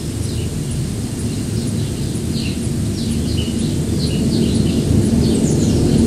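Gusty storm wind rumbling on the microphone, swelling louder near the end, with small birds giving many short, falling chirps.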